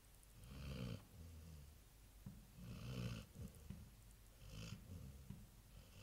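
Black Labrador retriever snoring in its sleep: three soft snores about two seconds apart, the loudest about three seconds in.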